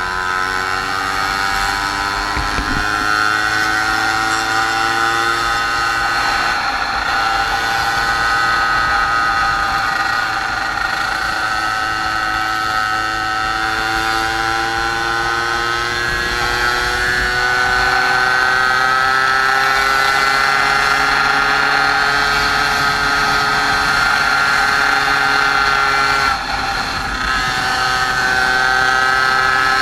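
Small moped engine running under way, its note climbing slowly as the bike gathers speed. Near the end it briefly drops off and then picks up again.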